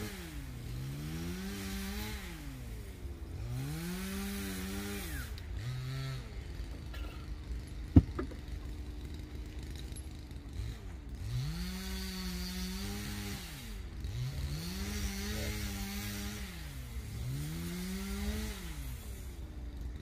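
Petrol chainsaw cutting wood, revving up to full throttle, holding about a second and dropping back, over and over, every couple of seconds. It drops to idle for a few seconds in the middle, where one sharp knock sounds about eight seconds in.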